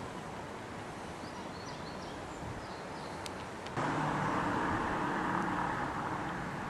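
Outdoor ambience: a steady background noise with a few faint chirps. About four seconds in, a louder steady noise with a low hum sets in abruptly.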